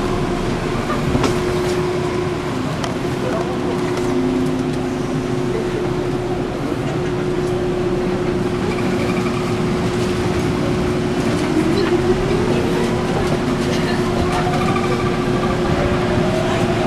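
Subway train running, a steady rumble with a steady hum, and a whine that rises in pitch over the last few seconds.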